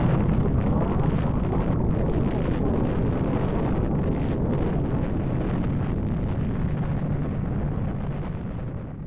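Deep rumbling roar of an atomic bomb explosion, dense and steady, slowly dying away and then cut off abruptly near the end.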